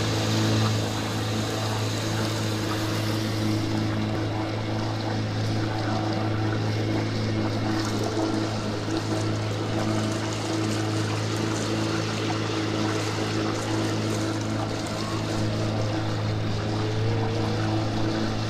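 Engine of a small open motorboat running steadily underway, a constant low hum with a steady hiss of water and wind over it.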